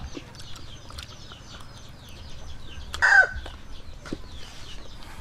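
Chickens clucking, with one loud, short squawk about three seconds in, over faint high chirping.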